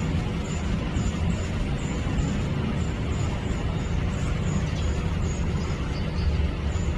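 Steady low background rumble, even throughout, with faint high ticks recurring about twice a second.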